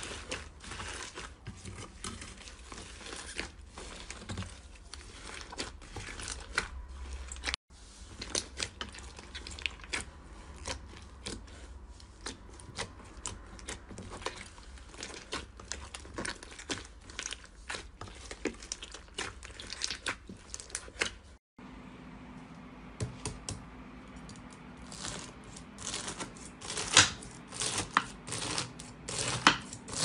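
Hands squeezing and pressing fluffy slime packed with foam beads, giving a steady stream of small crackles, pops and squelches, louder and sharper over the last few seconds.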